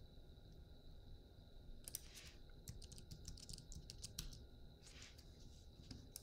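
Faint computer keyboard keystrokes and clicks, a quick run of them from about two seconds in to about five seconds in, as values are typed into fields.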